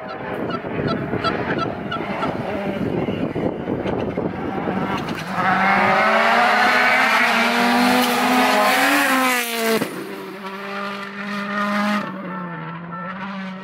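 Rally car approaching flat out: a rough engine rumble that grows into a loud, rising engine note, then drops sharply in pitch as the car passes and runs away at a lower, fading note.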